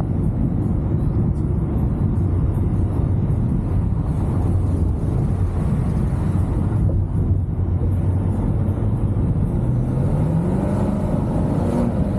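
Chevrolet Camaro SS's 6.2-litre V8 running under way over steady road and wind noise; about ten seconds in, the engine note climbs in pitch as the car accelerates.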